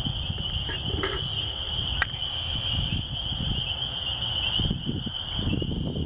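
A dense chorus of spring peepers, a steady high-pitched peeping of many frogs at once, over a low rumble. There is a single sharp click about two seconds in.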